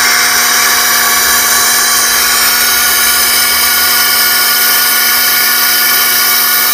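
Compressed-air motor of a pilot ladder winch running steadily at an even pitch, with a hissing whine over a steady hum, as it lowers the ladder.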